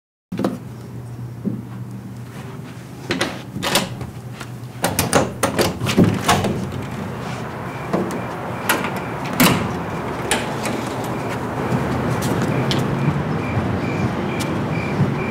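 A door being unlocked and opened: a series of sharp latch and lock clicks and knocks between about three and ten seconds in, over a low steady hum. From about seven seconds in, a cricket chirps in an even rhythm.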